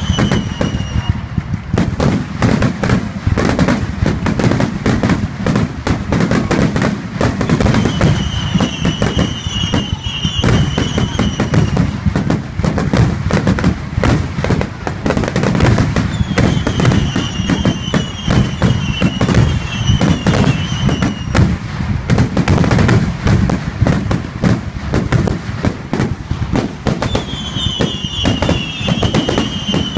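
Fireworks display: aerial shells bursting overhead in a dense, continuous string of bangs and crackles. Groups of short, high falling whistles come back every several seconds.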